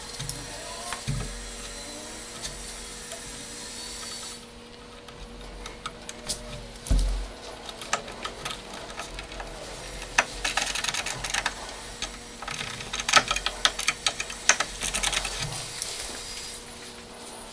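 Hand screwdriver driving tiny screws into a wooden beam: clusters of fine clicks and light scraping, densest in the second half, with one dull knock about seven seconds in.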